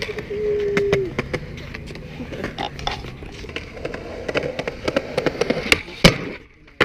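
Skateboard wheels rolling on concrete, with repeated clacks of boards popping and hitting the ground and a loud clack about six seconds in as a board lands. A voice holds a short call in the first second.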